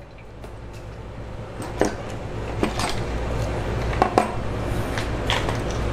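Cast-aluminium valve cover of a 2.4 Multiair four-cylinder being worked free of its last bolt and lifted off the cylinder head: a handful of light, scattered metal clinks and knocks over a low hum.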